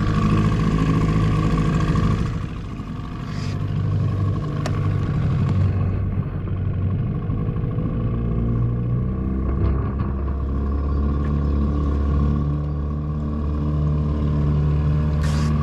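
Small 6-horsepower Evinrude outboard motor running in gear, pushing a jon boat along, with its engine note shifting about halfway through.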